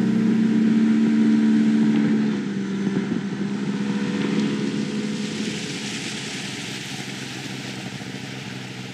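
Jet boat's engine running steady and high after speeding up, then easing off about two and a half seconds in, while a rushing noise grows louder.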